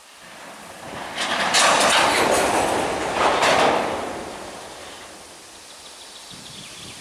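A loud hiss of compressed air venting from the brake system of a standing freight train hauled by a 2M62UM diesel locomotive. It swells about a second in, peaks twice and fades away over the next few seconds.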